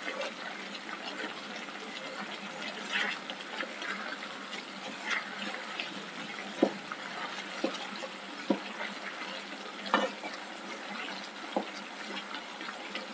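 Chicken pieces frying in coconut oil in a pan: a steady sizzle, with a few sharp clicks scattered through it as the pieces are turned.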